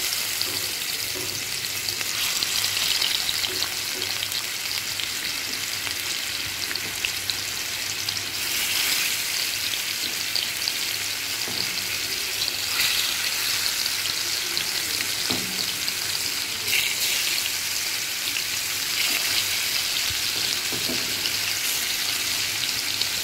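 Masala-marinated fish steaks sizzling as they shallow-fry in hot oil in a frying pan. The steady sizzle brightens at a few moments as more pieces are laid in.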